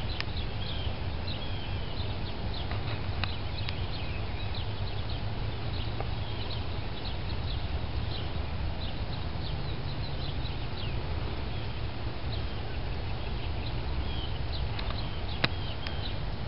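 Birds chirping, many short high calls scattered throughout, over a steady low rumble, with one sharp click near the end.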